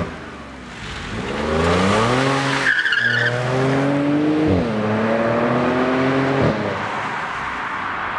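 Audi S5 Cabriolet's 3.0-litre supercharged V6 accelerating hard from a standstill, its note rising and then dropping sharply twice, about three and four and a half seconds in, as the S tronic gearbox shifts up. A brief high squeal comes at the first shift, and about six and a half seconds in the engine note ends, leaving tyre and road noise that fades as the car drives away.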